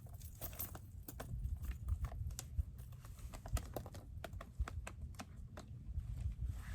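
Footsteps on an icy, rocky hiking trail: irregular sharp clicks and crunches of boots stepping on ice and rock, over a low rumble on the microphone.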